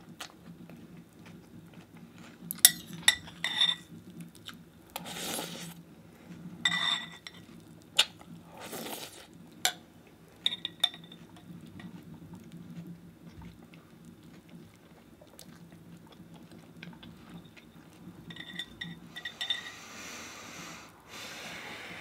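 A spoon clinking against a cereal bowl over and over, some strikes ringing briefly, with a few short noisy eating sounds in between.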